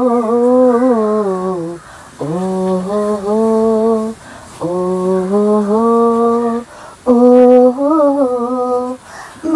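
A woman singing unaccompanied, wordless held notes of a Malayalam song in four long phrases with short breaks for breath.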